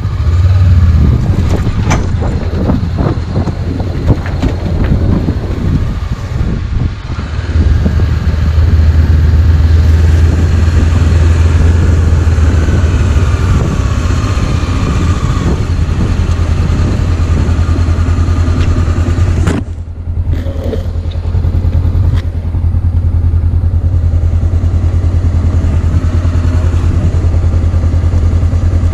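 Motorcycle engine running steadily during a ride, with a brief drop in level about twenty seconds in.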